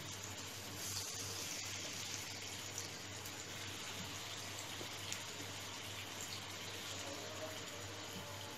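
Masala-coated slices frying in hot oil in a flat pan: a steady sizzle that gets louder about a second in, as more pieces are laid into the oil.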